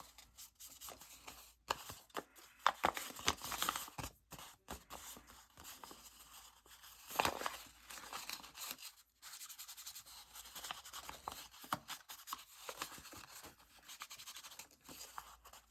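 Paper being crumpled and handled by hand, an irregular crackling and rustling with a louder crunch about seven seconds in.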